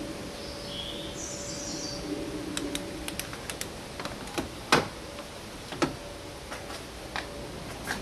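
Scattered light clicks and knocks of hands working on hoses and plastic parts in a car's engine bay, with two louder knocks midway. A few faint bird chirps near the start.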